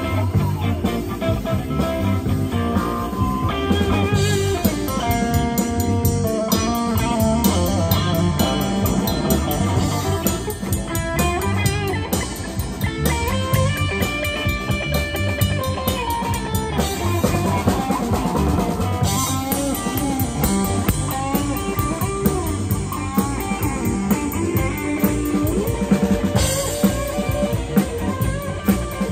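Live rock-blues band: a Stratocaster-style electric guitar plays a lead line with bent notes over a drum kit.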